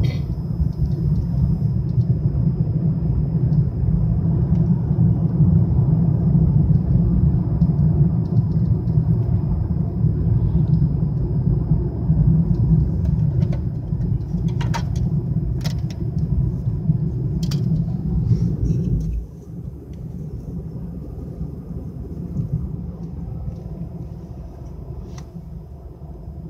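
Steady low rumble of road and engine noise inside a moving car's cabin at highway speed, which drops noticeably about two-thirds of the way through. A few faint clicks come in the middle.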